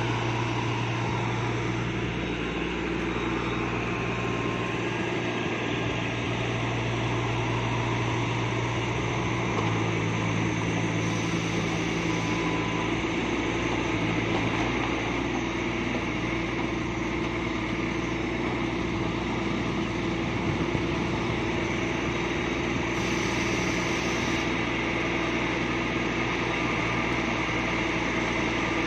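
Mini crawler excavator running steadily as it is operated, swinging and working its boom and arm; the engine note shifts in pitch a few times under the changing hydraulic load.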